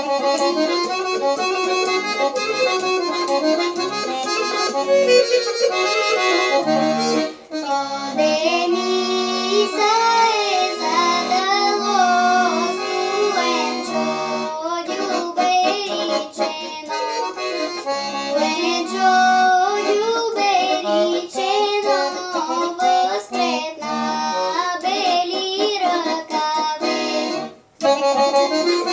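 Accordion playing a Rhodope folk melody, joined about eight seconds in by a young girl singing a Rhodope folk song over it. The music drops out briefly just before the end.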